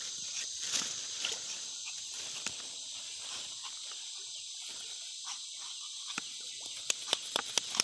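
A large knife cutting and shaving a fresh bamboo shoot, heard as scattered sharp clicks that come thicker and louder near the end, over a steady high-pitched insect chorus.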